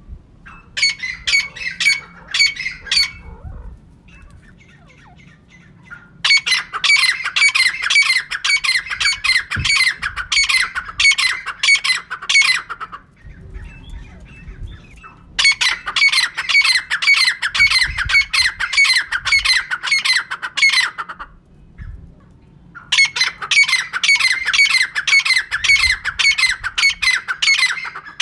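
Female francolin (teetar) calling: bouts of fast, sharp, evenly repeated notes, each bout lasting a few seconds with short pauses between, four bouts in all.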